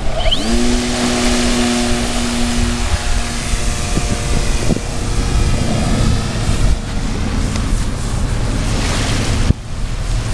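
Wind buffeting the microphone, with a steady two-note motor hum for the first few seconds.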